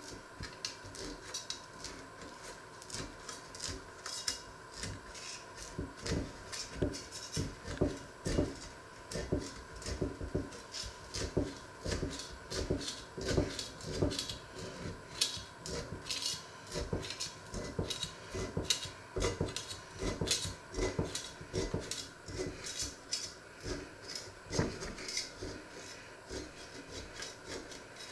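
Steel knife blade scraping against the inside of an enamelled cast-iron pot and the crust of a baked loaf, in short repeated strokes about two a second, as the loaf is freed from the pot's sides.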